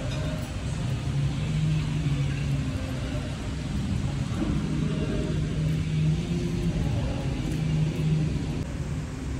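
A car driving, its engine and road rumble running steadily.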